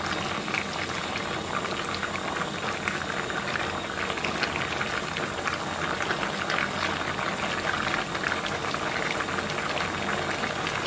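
Pork-belly braising liquid of soy sauce, oyster sauce and water bubbling steadily in a large pot, a dense crackle of small pops, while fresh noodles are laid over the potatoes and green beans to braise.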